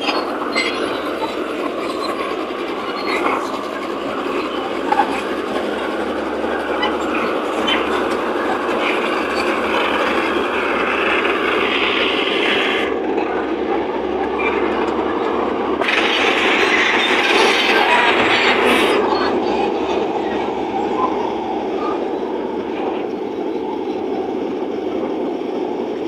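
Komatsu D155A crawler bulldozer pushing a blade-load of soil: its diesel engine runs steadily under heavy load while the steel tracks clank and squeal.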